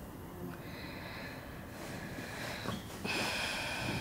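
A person breathing out heavily, a sigh-like exhale starting about three seconds in, over faint room tone.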